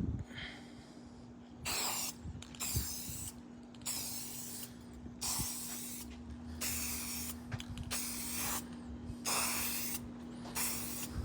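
Aerosol can of clear coat hissing in a series of short sprays, each about a second long with brief pauses between, as a coat is laid on.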